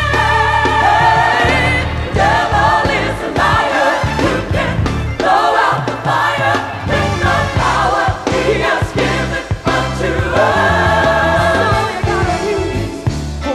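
Gospel choir singing with a band: held, wavering vocal notes over bass and drums.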